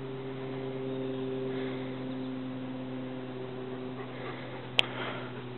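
A steady low electrical hum, with a single sharp click near the end.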